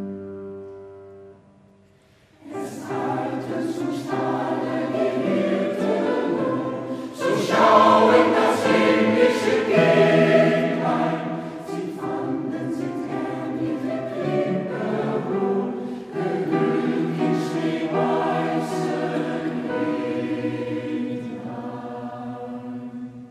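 A held chord fades away, then a mixed choir of men's and women's voices enters about two and a half seconds in and sings in harmony. The singing is loudest a few seconds after it enters and drops away near the end.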